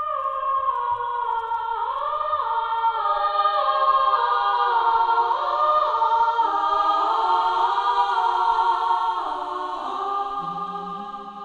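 Background music: a choir singing slow, held chords that step gradually lower in pitch and fade toward the end.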